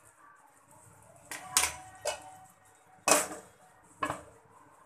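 Cookware clatter: about five sharp knocks and clinks, the loudest about three seconds in, as a glass lid is put onto a frying pan of cooking noodles.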